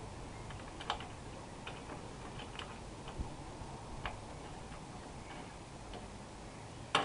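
A few light, separate clicks and taps as a bolt is handled and set by hand into a motorcycle tank-bag ring, with the sharpest click near the end.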